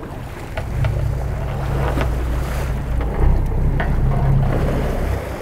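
Boat engine running steadily at low speed, with water washing against the hull and wind on the microphone.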